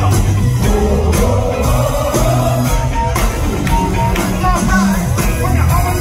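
Live funk band performing, with a steady beat, heavy bass and a lead vocal line over it.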